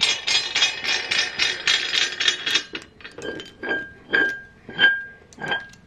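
Metal barbell weight plates clinking and rattling against the bar as they are handled. It starts with a quick run of rattling clicks, then about five separate ringing clanks roughly half a second apart.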